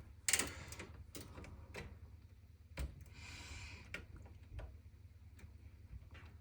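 Scattered light clicks and knocks, with a short scraping rustle about three seconds in: parts of a desktop PC case and its cables being handled and pushed into place.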